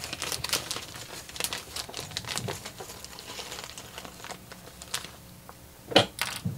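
Crinkling and rustling as small electronic parts are handled and sorted through, with a loud sharp knock about six seconds in.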